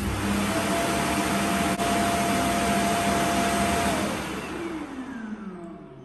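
DreameBot D10 Plus auto-empty station's suction motor running steadily, a rush of air with a steady whine, sucking the dirt out of the docked robot vacuum's dustbin into the station's bag. About four seconds in it switches off and winds down with a falling whine, fading away by the end.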